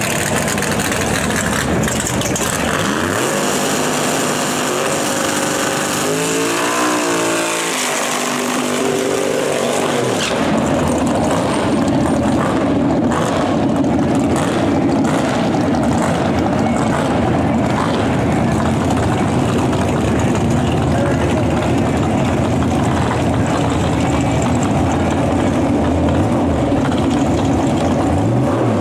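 Nitrous drag cars' big-block Chevrolet V8 revving hard during a burnout, the pitch climbing and falling several times. From about ten seconds in, a louder, steadier mix of engine and tyre-spin noise.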